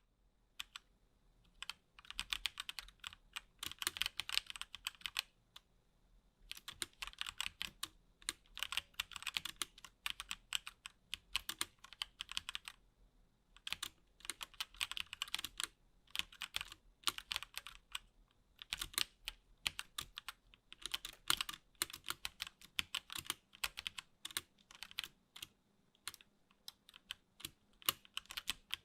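Typing on a HyperX Alloy Origins Core TKL mechanical keyboard with HyperX Aqua tactile switches: fast runs of key clacks lasting a few seconds each, with short pauses between.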